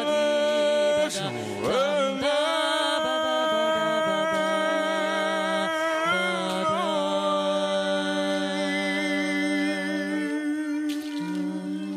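Wordless improvised vocal music: long held, wavering sung or hummed tones over a steady low drone, with a few sliding pitches in the first two seconds.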